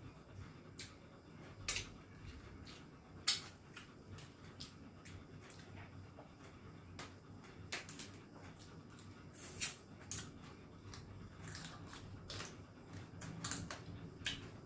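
Close-miked eating: irregular sharp clicks, cracks and smacks of food being bitten, chewed and handled, with two louder cracks about 3 and 10 seconds in.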